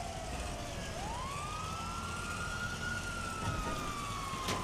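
Video-game police car siren wailing: its pitch drops, then about a second in sweeps up to a high note that sinks slowly toward the end.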